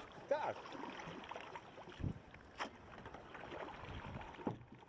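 Kayak paddle strokes in calm water: irregular splashes and drips with the odd knock on the hull. Near the start the loudest splash comes with a short pitched sound.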